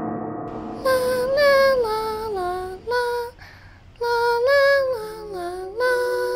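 Background music: a gong's ringing dies away in the first second, then a woman's voice sings a slow, lullaby-like melody of held notes that slide from one pitch to the next, in two phrases with a short pause between them.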